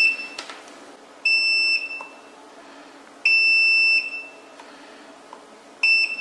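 Digital multimeter's continuity buzzer beeping as its probes touch points on a circuit board. There is the tail of one beep at the start, then three separate steady high beeps, each about half a second to three-quarters of a second long, the last near the end. Each beep signals an unbroken electrical connection between the two probed points, here resoldered joints being checked.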